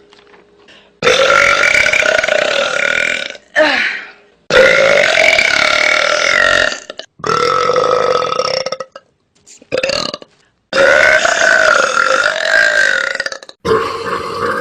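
A woman belching loudly over and over: five long, drawn-out belches of two to three seconds each, with a couple of short ones between them.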